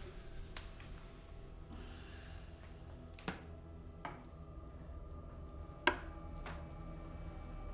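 A low steady hum with several sharp clicks at uneven intervals, the loudest about six seconds in, and a soft breath about two seconds in.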